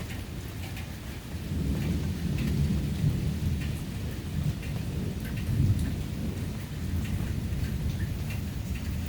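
Rain falling steadily with scattered drops ticking, under a low rumble of thunder that swells about a second and a half in and again around five seconds in.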